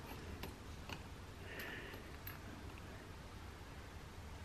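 Faint ticks and light scrapes of steel digital calipers being slid and seated against a turbocharger's turbine wheel, a handful of separate clicks over a low steady hum.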